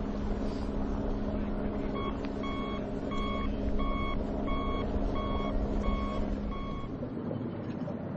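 Back-up alarm of a heavy vehicle beeping about twice a second over its running engine and low rumble; the beeps start about two seconds in and stop, along with the engine tone, near the end.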